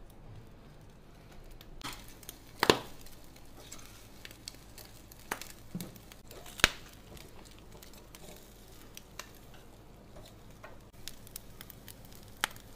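Metal tongs clacking on a metal grill rack as pig's trotters are moved and turned, with two louder clacks about four seconds apart among lighter ticks, over the faint sizzle of oiled meat on the hot grill.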